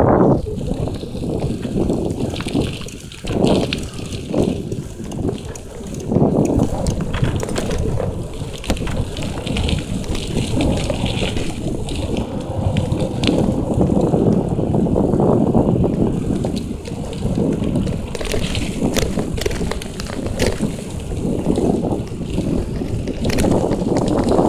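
Bicycle ridden along a rough dirt forest trail: tyres rolling over the ground with many small clicks and rattles, under a heavy low rumble of wind on the microphone.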